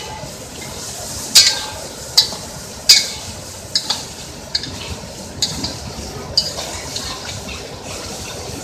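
A metal spoon stirring curry in a pot, striking the pot in sharp clinks about once a second, over a steady hiss from the cooking.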